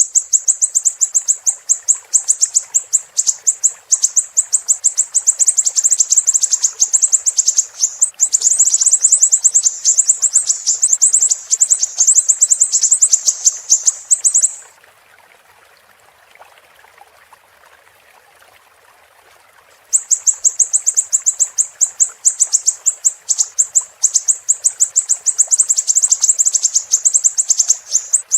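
Siri-siri bird singing a fast, high-pitched trill of rapidly repeated sharp notes. About halfway through it stops for some five seconds, leaving only a faint hiss, then resumes.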